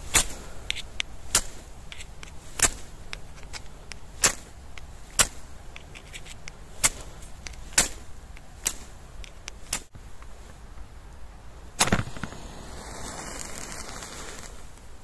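A blade chopping into wood: about ten sharp strikes at uneven intervals of one to two seconds, the loudest near the end. They give way to a soft rustling for the last few seconds.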